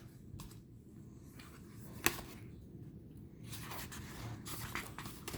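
Tarot cards being handled: faint rustling and sliding of card stock, with one sharp tap about two seconds in.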